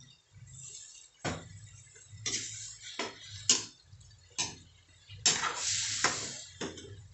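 Metal utensil stirring in a steel wok, knocking and scraping against the pan in uneven strokes about once a second, with a longer scrape near the end.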